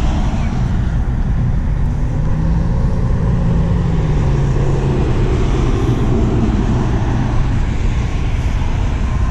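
Steady low rumble of nearby road traffic, with one vehicle's engine note rising and falling about two to four seconds in.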